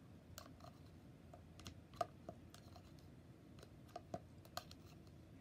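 Faint, irregular light clicks and taps of a small plastic spoon against a plastic bowl while scooping the last of some soft doll food.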